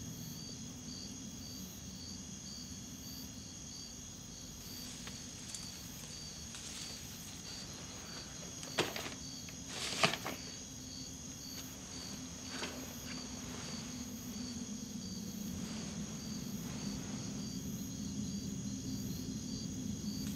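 Night-time insect ambience: crickets chirping in a steady, regular pulse over a low hum. A few brief sharp snaps break in, the loudest two about nine and ten seconds in.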